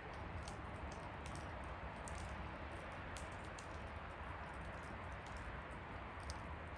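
Campfire burning: a steady rush of flames with irregular crackles and small pops from the wood, a few each second.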